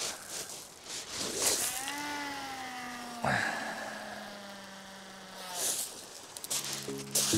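A fishing reel's spool spinning as line pays out behind a long beach cast with a 6-ounce lead: one long whine that slowly drops in pitch as the spool slows, then stops. Music begins near the end.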